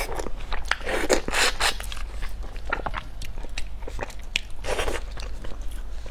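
Close-miked eating: biting and chewing with clicks and wet, noisy mouth sounds, several longer smears among the short clicks.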